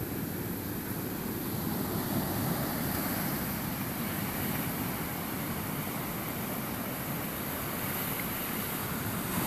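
Ocean surf breaking and washing up a sandy beach, a steady rush of noise, with some wind rumble on the microphone.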